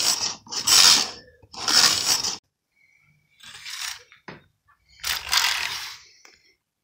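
Carriage of a 1940s–50s Necchi Mini knitting machine pushed by hand back and forth along the needle bed, in about five short noisy strokes with uneven gaps and a sharp click about four seconds in. The machine is knitting rows again after a needle jam has been cleared.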